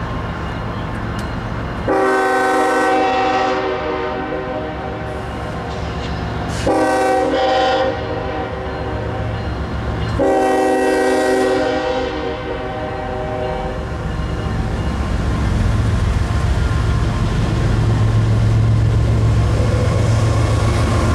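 A Norfolk Southern freight locomotive's Nathan K5HLL five-chime horn sounds a grade-crossing signal: a long blast, a short one, then a long one that fades out. Beneath it a diesel locomotive rumble grows steadily louder as the train approaches.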